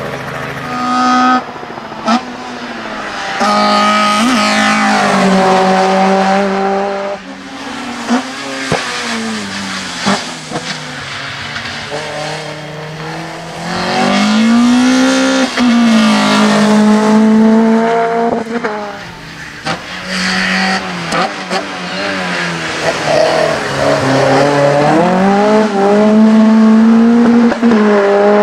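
VW Golf 1 GTI race car's four-cylinder engine revving hard up the hill, its pitch climbing through each gear and dropping at the shifts and when braking for corners. A few sharp cracks stand out along the way.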